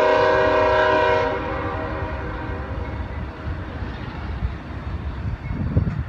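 Diesel locomotive horn sounding a chord of several tones that cuts off about a second in, over the steady low rumble of a freight train rolling past. A short low thump near the end.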